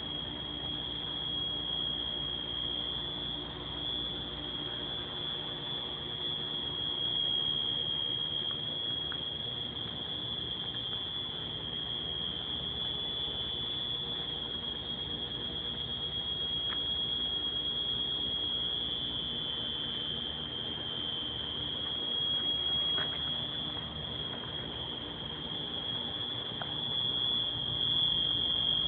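Building fire alarm sounder going off with one continuous, unbroken high-pitched tone.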